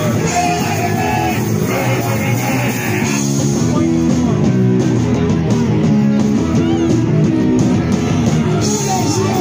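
Live rock band playing loud: electric guitar and drum kit.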